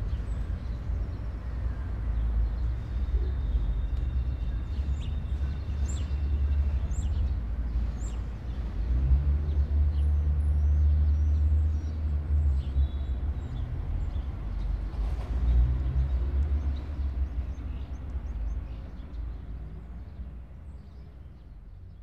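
Urban square ambience: a low, steady rumble of distant city traffic, swelling about nine seconds in, with scattered bird chirps and whistles above it. It all fades out towards the end.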